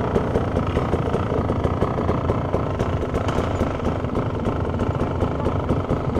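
Dirt bike engines running: one idles steadily close by while other dirt bikes ride up the trail toward it.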